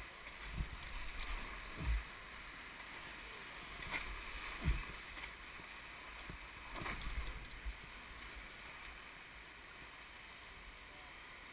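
Whitewater rapids rushing and splashing past an inflatable raft, a steady hiss of moving water with several dull low thumps, the loudest about two and about four and a half seconds in.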